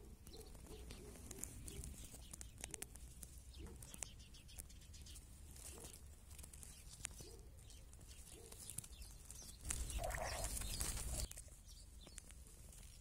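Faint crackling and clicking from the soil among grass roots, many small irregular clicks, which the recording presents as the sound of earthworms moving in the earth. Near the ten-second mark a louder low rumbling burst lasts about a second and a half.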